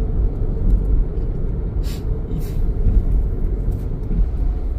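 Steady low rumble, with a couple of faint brief clicks about two seconds in.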